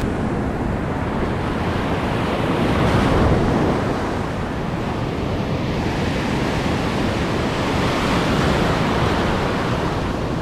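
Ocean surf breaking and washing up over the sand in a steady rush, with one wave louder about three seconds in. Wind buffets the microphone underneath.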